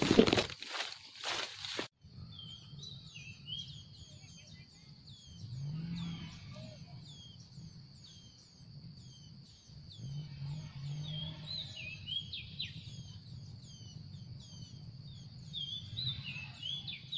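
Footsteps crunching through dry leaf litter for about two seconds, cut off suddenly. Then forest ambience: a steady high insect drone with many short, repeated falling bird chirps over it, and a low background hum.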